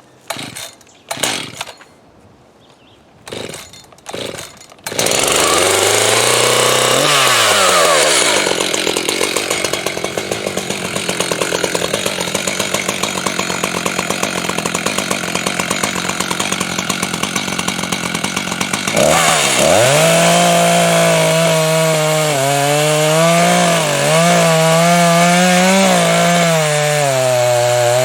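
A few brief knocks and rustles, then about five seconds in a chainsaw starts running loud, revving up and down before settling into a long cut into a white spruce trunk. Near the end its engine note wavers up and down as the load on the chain changes.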